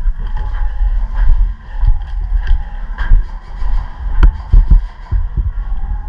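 Irregular low thuds and knocks of a player moving on foot with gear, close to the microphone, with a single sharp crack about four seconds in.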